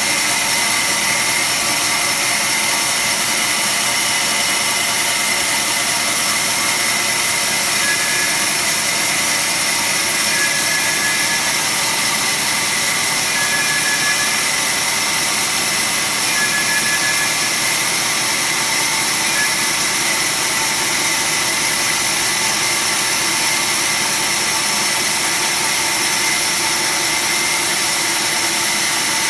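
Automatic band saw running steadily: an even, high-pitched mechanical whir and hiss at constant level. Faint short whistles recur every few seconds in the first half.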